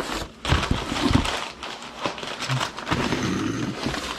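Packing material rustling and crinkling inside a cardboard box as hands dig through it: a dense run of crackles and clicks, loudest about half a second and a second in.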